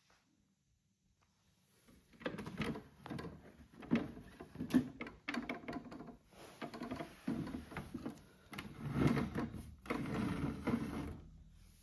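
Small motor of a toy washing machine turning its drum, whirring with uneven clicking and rattling. It starts about two seconds in and stops near the end.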